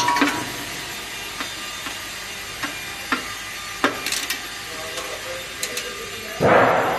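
Scattered light clicks and knocks of hand tools and parts being handled on a vehicle's fuel filter housing, then one short, loud scraping rush about six and a half seconds in.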